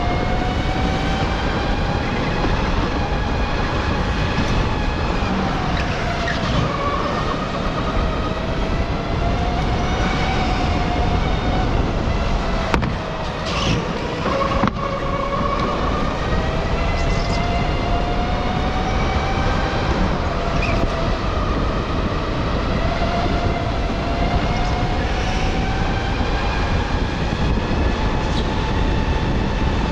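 Electric go-kart's motor whining under a steady rush of wind and tyre noise. The whine's pitch drops as the kart slows, about six seconds in and again about fourteen seconds in, then climbs again as it speeds up.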